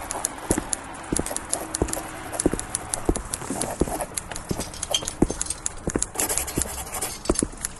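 A run of sharp, irregular knocks, several a second, on a hard surface.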